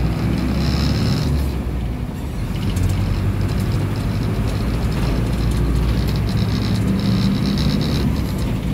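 Ride noise inside a moving bus: the engine's steady low drone and road noise, with the bus body rattling over the road.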